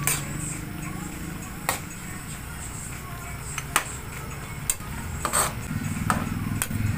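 Metal spatula stirring shrimp and string beans in an aluminium wok, scraping and knocking against the pan with about seven sharp, irregularly spaced clinks, over a steady low hum.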